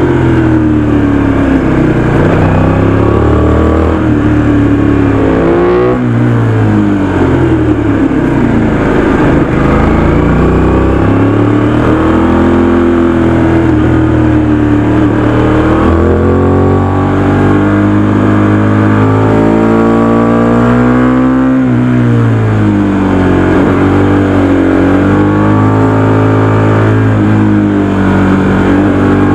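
Aprilia RS 660's 659 cc parallel-twin engine on its stock exhaust, revving up and falling back repeatedly as the bike accelerates and eases off. The pitch climbs steadily in long pulls and drops sharply several times, about six, sixteen and twenty-one seconds in.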